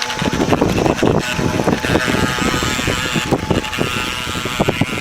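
Model boat's Graupner Speed 700 electric motor running, a faint whine under loud, rough crackling noise.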